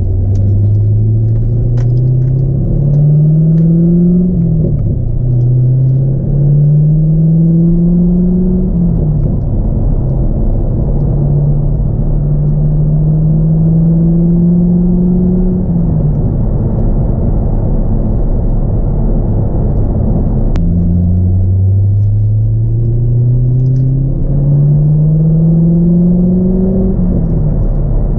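2002 C5 Corvette's LS1 V8 with a cold air intake, heard inside the cabin while accelerating: the engine note climbs in pitch through each gear and drops at every upshift, three times in the first half. It then holds a steady cruise for a few seconds before pulling up through another gear, with a shift near the end.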